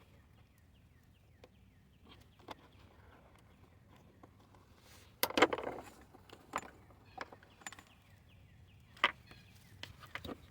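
Scattered clicks and knocks of hands working the engine wiring harness and its plastic connectors and clips in a car's engine bay, with a louder clatter about five seconds in and a sharp knock near the end.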